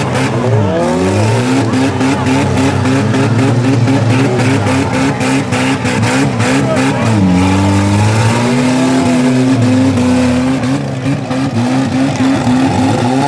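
Four-cylinder demolition derby cars' engines revving up and down over and over as the cars ram each other, with repeated knocks and bangs of crumpling metal.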